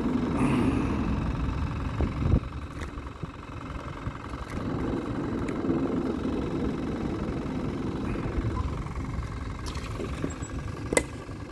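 Steady low rumble of vehicle traffic on the highway bridge overhead. A knock about two seconds in and a sharp click near the end come from handling the fish and tackle in the boat.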